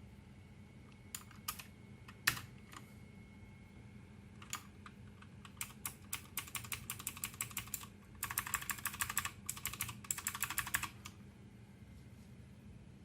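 Typing on an A4-Tech Bloody B760 mechanical keyboard with LK optical switches. A few single keystrokes come first, then steady typing, then a fast, dense run of clicks that stops about two seconds before the end.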